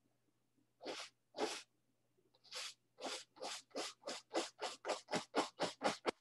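Bristles of a fan brush scratching down a wet oil-painted canvas in short strokes: a couple of slow strokes, then a quickening run that speeds up to about five scratches a second.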